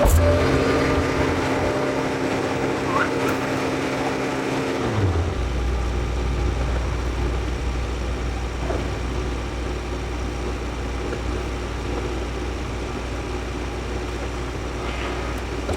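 John Deere 410 backhoe loader's diesel engine running at raised revs, then dropping to a low idle about five seconds in and idling steadily.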